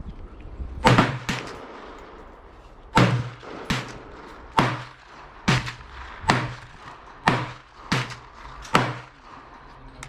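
A string of about ten sharp gunshot reports, each with a low thud and a short echoing tail, fired at uneven intervals of roughly a second, often in close pairs.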